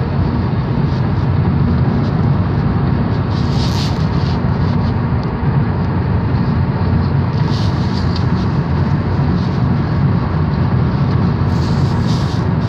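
Inside a moving car: steady low rumble of road and engine noise, with three brief hissing whooshes about four, eight and twelve seconds in.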